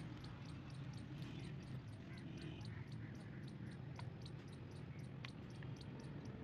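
A cricket chirping in a fast, even series, about three to four chirps a second, over a steady low hum. Two sharp clicks come about four and five seconds in as chainsaw parts are handled.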